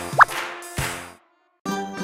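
Light children's background music with a cartoon 'plop' sound effect, a quick pitch sweep up and back down, about a quarter-second in. The music cuts out for about half a second after the first second, then starts again near the end.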